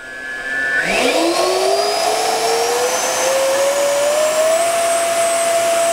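70 mm electric ducted fan of a Freewing F-35 Lightning II, on a 6-cell battery, spooling up on a static thrust run. About a second in, a loud whine rises gradually and smoothly in pitch, then holds at a high steady pitch near the end.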